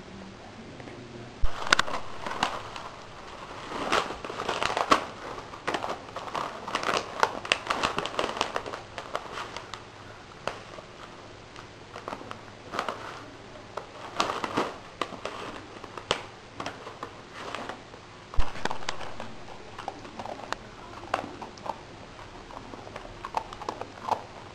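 A dog chewing and tugging at a plush toy and its wrapping, making irregular crinkling and crackling with scattered sharp snaps, the loudest about a second and a half in and again near eighteen seconds.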